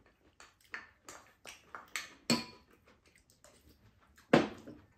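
Spoons and chopsticks clicking and scraping against ceramic bowls during a meal: a scattered run of short light clinks, with a louder knock about four seconds in.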